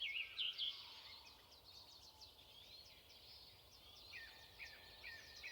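Faint bird chirps over quiet outdoor background noise: a few short high chirps at the start, then a quick repeated run of them from about four seconds in.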